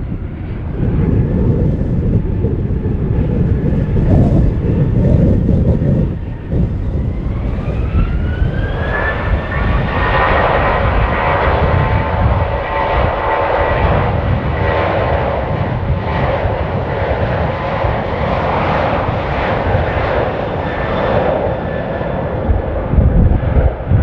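Boeing 737-800's CFM56 turbofan engines spooling up to takeoff thrust for the takeoff roll. The whine rises in pitch about seven to nine seconds in, then holds steady over a loud jet rumble.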